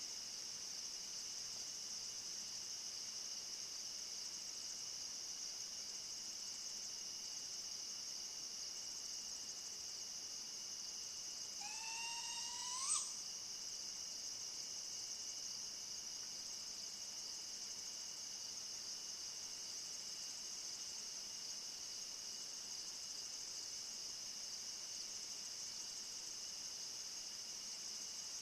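A single call from an unidentified night animal, possibly a bird, that rises in pitch over about a second and ends abruptly, about twelve seconds in. Behind it a steady high-pitched insect chorus, like crickets, continues throughout.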